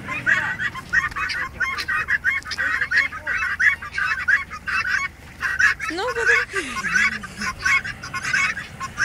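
A flock of guineafowl calling nonstop with short, harsh, rapidly repeated cries, several a second.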